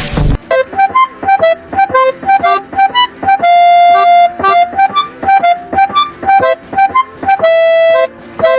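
Background music: a bouncy melody of short, separate notes on a keyboard-like instrument, with two longer held notes, one in the middle and one near the end. A louder, fuller passage cuts off just at the start.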